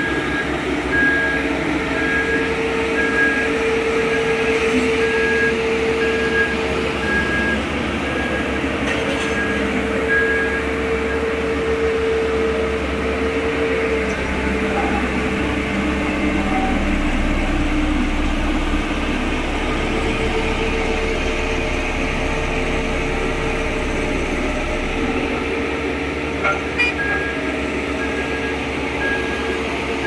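Dynapac single-drum road roller's diesel engine running steadily under load. A reversing alarm beeps about once a second for roughly the first ten seconds and again near the end.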